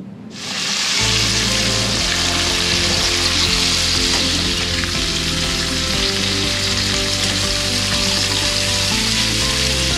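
Gray snapper fillets and conch pieces sizzling steadily in hot butter and olive oil in a frying pan, the sizzle starting suddenly as the fish goes in. Background music with a steady bass comes in about a second in.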